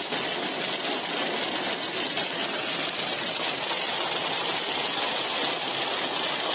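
Heavy rain falling in a steady, even rush, with no separate impacts standing out.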